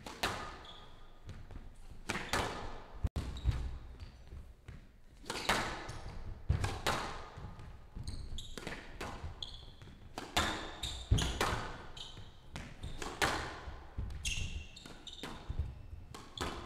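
Squash rally in play: the ball cracking off rackets and the walls of a glass-walled court at irregular intervals, each hit followed by a short ring in the hall. From about the middle on, short high squeaks of players' shoes on the court floor join the hits.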